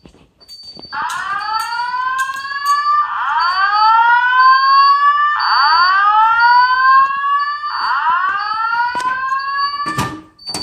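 Wall-mounted System Sensor speaker strobe sounding the slow-whoop evacuation tone of a Simplex voice evac message: four rising whoops about two seconds apart, between loops of the spoken announcement. A faint high beep pulses steadily underneath, and a sharp knock sounds near the end.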